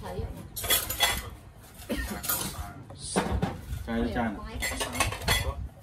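Dishes and cutlery clinking and knocking on a meal table as food is served, several separate clinks.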